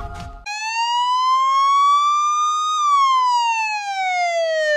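Police siren wailing: one slow rise in pitch for about two seconds, then a long slow fall. A piece of music cuts off just before it starts.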